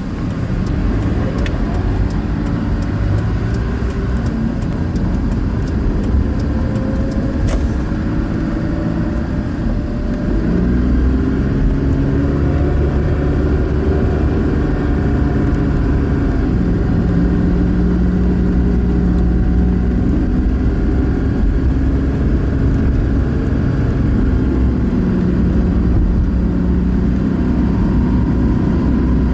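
Car engine and road noise heard from inside the cabin. The engine note glides up and down as the car speeds up and eases off, and the sound grows louder about ten seconds in.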